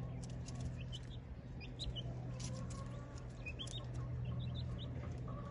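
Young chickens clucking softly and giving short high peeps as they dust-bathe in loose soil, with a steady low hum underneath.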